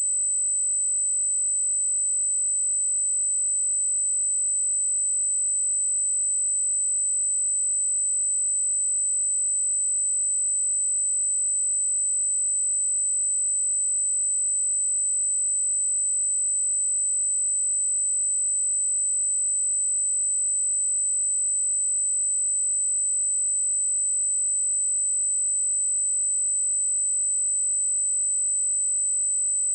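A steady, high-pitched 8052 Hz sine-wave test tone, one pure pitch held at constant level.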